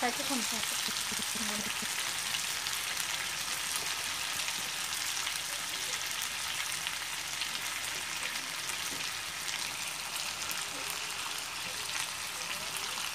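Chicken and potato curry sizzling steadily in a metal pot over a wood fire, a constant hiss with small crackles running through it.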